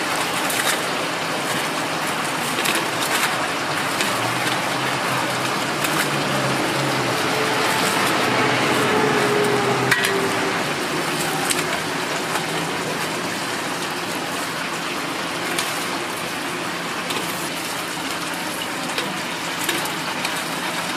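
Kitchen scissors snipping through a whole fried chicken and metal tongs clicking against it, scattered sharp clicks over a steady rushing kitchen noise.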